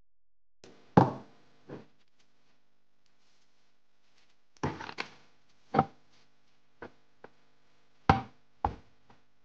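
A series of sharp, irregular knocks, about nine of them with uneven gaps, over a faint steady hum.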